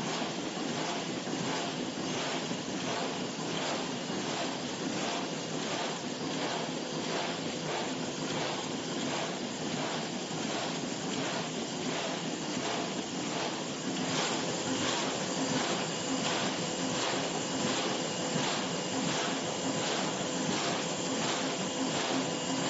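Bobst 102 BMA hot foil stamping press running in production: a steady mechanical clatter with a regular beat of about one and a half strokes a second, one platen stroke per sheet, over a constant whine. It gets a little louder about two-thirds of the way through.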